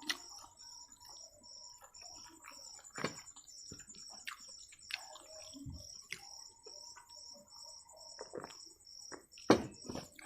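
Close-up mouth eating sounds: soft chewing of egg noodles, with scattered wet smacks and clicks from lips and fingers, one sharp smack near the end. A faint, steady high pulsing runs behind.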